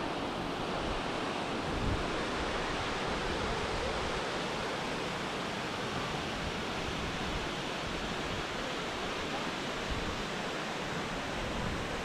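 Steady rush of water from a creek waterfall.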